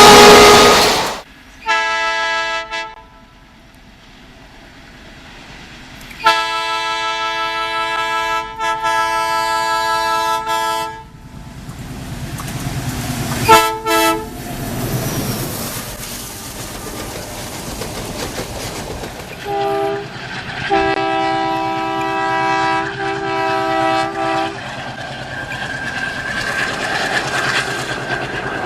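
Indian Railways locomotive horns sounding in a series of blasts: a short blast, a long blast of about five seconds, two quick toots, then a short and a long blast. Between and after the later blasts a passing train's running noise and wheel clatter can be heard.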